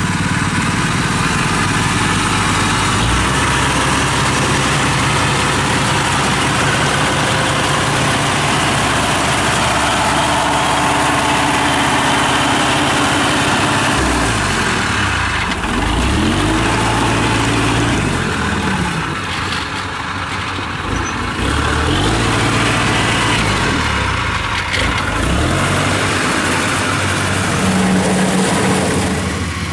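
Engine of a tracked rice-hauling carrier running steadily under load. About halfway through, engine pitch rises and falls several times as the throttle changes, and near the end a combine harvester's engine is heard.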